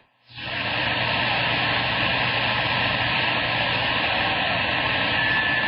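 CB radio receiver hiss: steady static from the speaker with the squelch open between transmissions, coming up a moment after the sender unkeys. A faint short tone appears near the end.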